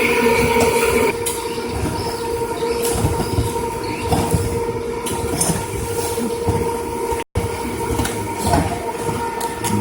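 Paving block production machines running: a steady machine hum with irregular knocks and clatter. The sound drops out for an instant about two-thirds of the way in.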